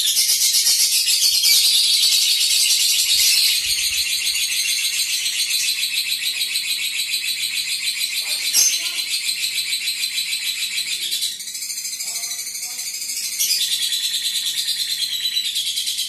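Lovebird singing a long, high-pitched, rapid chattering trill (the "ngekek" sought in contest lovebirds) that runs almost without a break and weakens briefly about two-thirds of the way through, with a single sharp click just past the middle.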